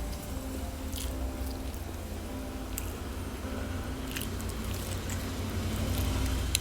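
A person chewing and biting into fried chicken close to the microphone, with a few soft clicks over a steady low hum.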